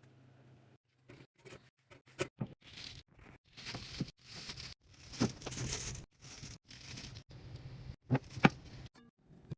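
Food containers and packaging being handled while restocking: a string of sharp plastic clicks and knocks as items are set down, with two stretches of crinkling packaging about three and five seconds in.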